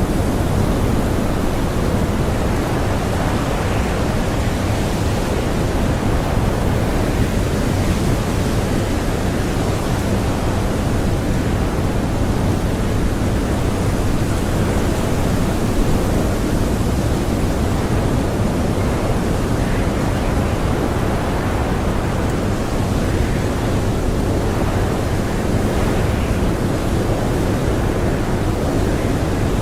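Blizzard wind blowing steadily: a loud, deep, even rush of noise that never lets up.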